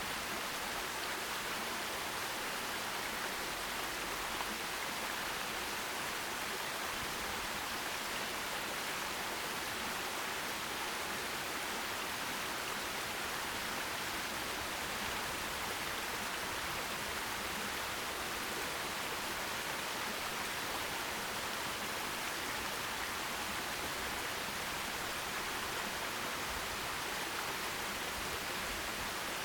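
Forest stream running, a steady, even rush of water.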